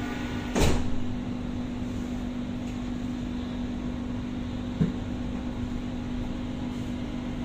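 Steady hum inside a Doha Metro train car, with one low tone held throughout. A short knock comes just under a second in, and a small click about halfway through.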